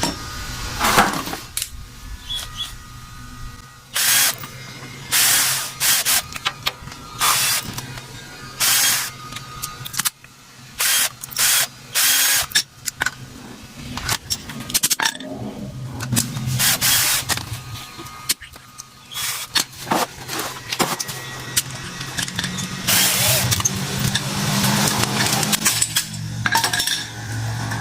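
A power tool cutting into the casing of a floor-fan motor to get at its copper windings, in repeated short bursts over a steady motor hum, with a longer stretch of cutting near the end.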